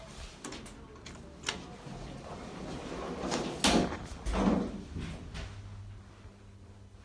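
Evans passenger lift: a few light clicks, then the steel sliding doors shutting with a loud clatter and thud about three and a half to four and a half seconds in. A steady low hum then sets in as the lift starts to move.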